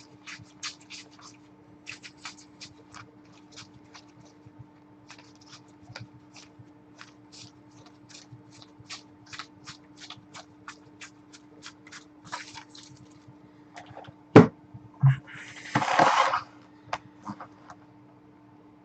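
Trading cards being handled and sorted one at a time, a run of light ticks and flicks about two or three a second. About 14 s in, two sharp knocks, then a brief loud rustle.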